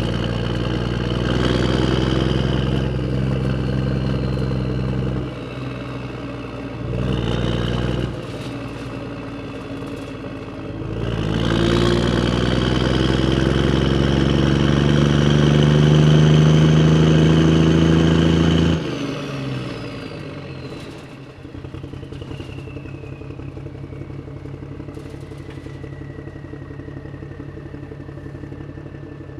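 Motor vehicle engine running loud, with a short rev about seven seconds in. It then climbs slowly in pitch as it accelerates for several seconds, drops suddenly back, and settles into a steady idle for the last third.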